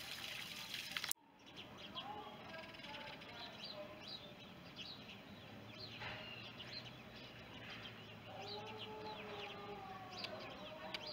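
Songbirds chirping, with many short high chirps and one falling call, over a few lower, drawn-out tones. For about the first second there is a rushing hiss, which cuts off abruptly.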